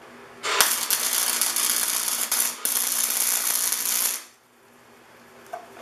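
Electric welding arc crackling on the steel body of a Stanley S18 block plane as a small hole in its side is welded shut. The crackle starts about half a second in, breaks off for a moment partway through, and stops suddenly after about four seconds.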